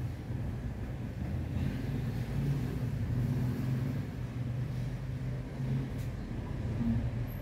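Steady low rumble of a running engine or motor, with a short higher tone near the end.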